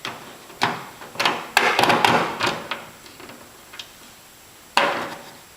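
Light metallic clicks, taps and scrapes of a bolt, washers and spacers being worked back through brackets by hand. The clicks come singly, then bunch together about two seconds in, with a louder knock near the end.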